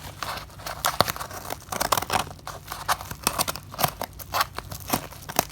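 A package being cut and torn open, the packaging crinkling and crackling in quick, irregular snips and rustles.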